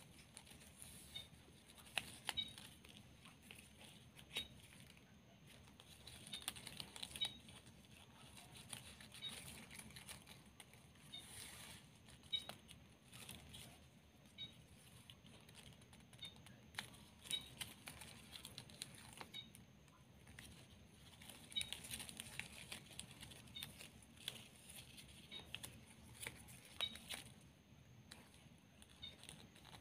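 Faint rustling and crinkling of plastic ribbon being folded and wrapped by hand, with scattered small clicks and crackles.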